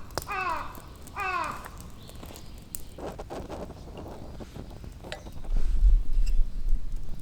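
A crow cawing, three falling calls in quick succession that stop about a second and a half in. Soft rustling and scattered clicks follow, then a louder low rumble starts about five and a half seconds in.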